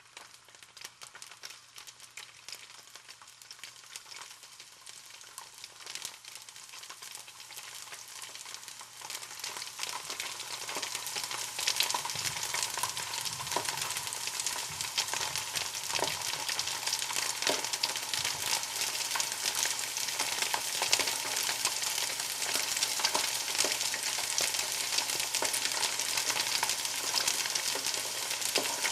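Food frying in a hot pan: a dense sizzle crackling with small pops, starting faint and growing louder over the first dozen seconds, then holding steady.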